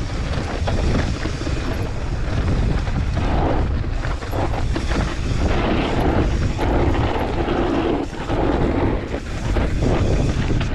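Wind rushing over the microphone of a bike-mounted action camera on a fast mountain-bike descent. Under it, the tyres and bike rattle and knock over a rough dirt trail.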